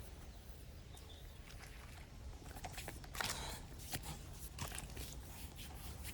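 Faint rustling and a few soft clicks and knocks over a low steady rumble, most noticeable about three seconds in: handling noise.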